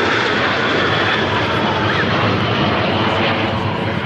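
Jet noise from Aero L-39 Albatros jet trainers flying overhead in a formation display: a steady, loud engine noise that eases a little near the end.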